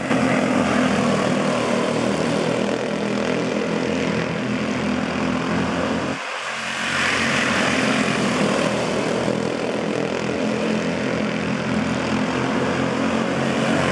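A pack of quarter midget race cars with small Honda engines buzzing steadily at racing speed as they lap the oval together, with a brief dip in the sound about six seconds in.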